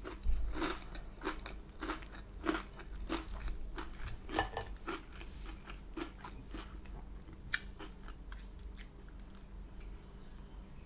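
Close-miked chewing and biting of food, with crunchy mouth clicks in a steady rhythm of roughly one every half second or so, growing sparser and fainter after about five seconds.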